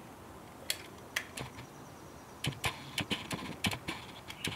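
Manual caulking gun clicking as its trigger is squeezed to push out a bead of construction adhesive: scattered sharp clicks, a few early and more bunched together in the second half.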